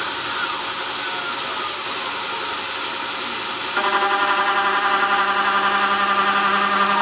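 Benchtop CNC milling machine cutting a small metal part, with a steady hiss of mist coolant over the spindle and cutting noise. In the first half, faint tones glide up and down; about four seconds in, a steady pitched whine sets in and holds as the cutter works the part.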